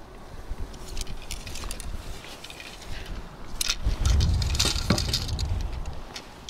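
Light clicks and metallic clinks of a feeder rod and its tackle being handled. Wind buffets the microphone for a second or two past the middle.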